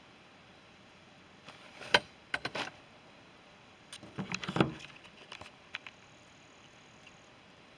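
A handheld club knocking on wood: one sharp crack about two seconds in, a few quick knocks right after, then a clattering cluster of knocks about four seconds in.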